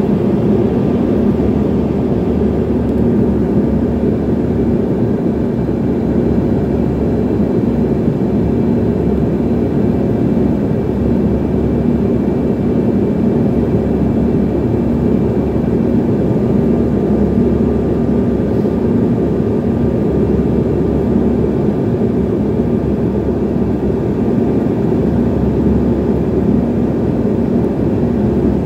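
Steady engine drone of a small passenger plane in flight, heard inside the cabin: an even, unchanging low hum with faint steady whines above it.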